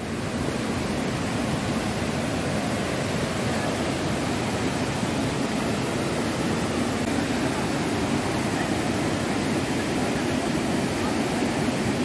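Steady rushing of a waterfall cascading over rocky steps.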